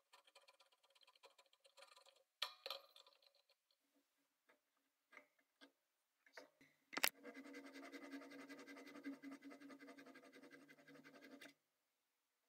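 Antique hand finishing saw cutting through a wooden hammer handle: rasping strokes with a faint ring that die away about a second in, a few scattered clicks, a sharp knock about seven seconds in, then a steady stretch of sawing that stops suddenly shortly before the end.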